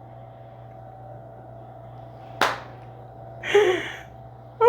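A single sharp crack about halfway through, a joint popping during a chiropractic adjustment, over a steady low hum. About a second later comes a short breathy exhale with a little voice in it.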